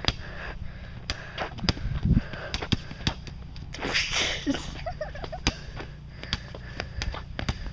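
Scattered short, sharp knocks and taps at irregular moments over a steady low rumble, with a short rushing noise about four seconds in.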